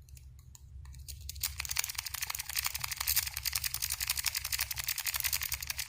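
A rake pick scraping back and forth over the wafers of a 10-wafer progressive practice lock, making a fast, even run of light clicks, several a second, that starts about a second and a half in. The lock gives no feedback and does not open.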